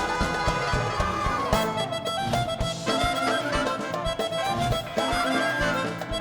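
Instrumental music with a steady beat and a sustained melodic line.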